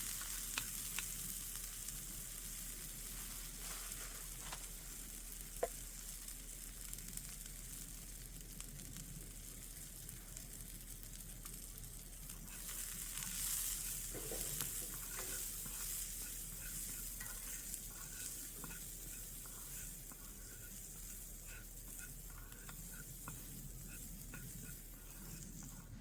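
Food frying in a pan over a campfire: a steady sizzle with scattered small pops, swelling briefly about halfway through.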